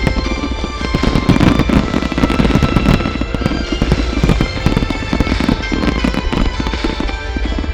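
Aerial fireworks bursting and crackling in a dense, continuous volley, with music playing along with sustained tones.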